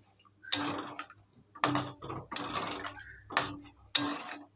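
Spatula scraping and knocking against a metal kadai while stirring a watery curry: about five separate strokes, each starting sharply and fading.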